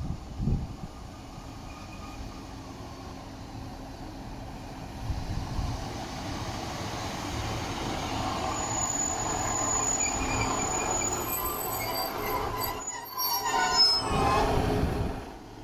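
Class 150 Sprinter diesel multiple unit running into the platform and braking to a stop. Its brakes squeal with high tones from about halfway in, growing loudest near the end before the noise drops away sharply. A couple of loud thumps come in the first second.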